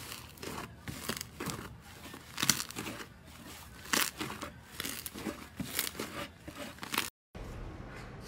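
Fluffy, airy slime being squeezed and kneaded by hand, giving irregular crackling and squelching bursts as it folds and tears, loudest about two and a half seconds in and again at four seconds. The sound drops out for a moment near the end, then gives way to a fainter, steadier rustle.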